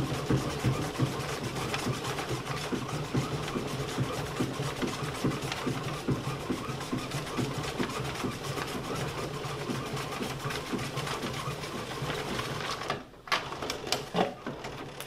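Pianola (player piano) running with no notes sounding, its air motor and spool mechanism whirring with a fast, even clatter as the paper roll winds. It stops about 13 seconds in, followed by a few sharp clicks and knocks as the roll is handled in the spool box.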